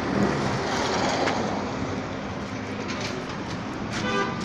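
Busy street traffic noise: a motor vehicle engine running under a steady wash of urban noise, with a brief faint voice near the end.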